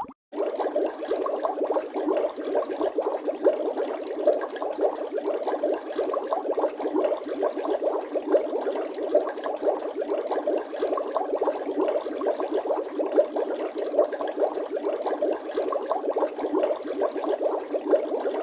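Water bubbling: a continuous, dense stream of small irregular bubble pops. It starts just after a split-second gap at the very beginning.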